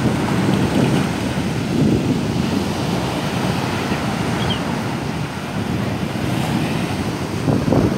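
Sea waves breaking and washing up the shore, with wind buffeting the microphone.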